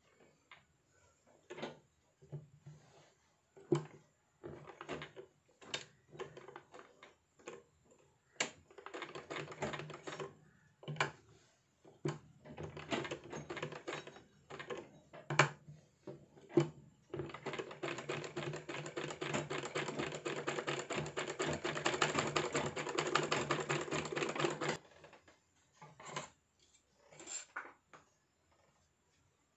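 Sewing machine stitching in short bursts of rapid clicking, with single clicks and knocks between, then a steady fast run for about seven seconds past the middle before it stops.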